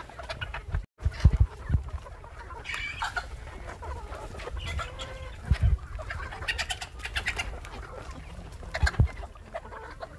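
A flock of native desi chickens clucking and calling over one another as they feed, with a few low thumps that are the loudest sounds. The sound cuts out briefly about a second in.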